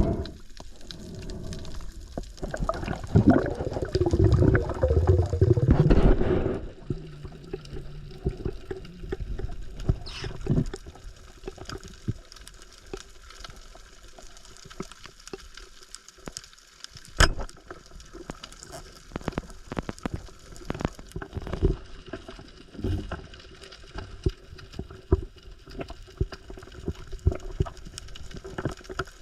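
Water gurgling and sloshing, with a loud rush of water a few seconds in, followed by scattered sharp clicks and knocks.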